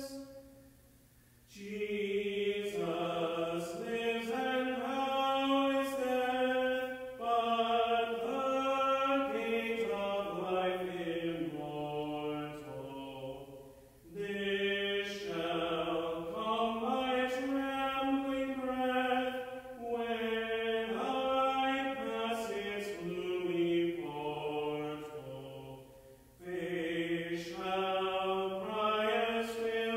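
A man singing alone, unaccompanied, in long melodic phrases with short breaks between them.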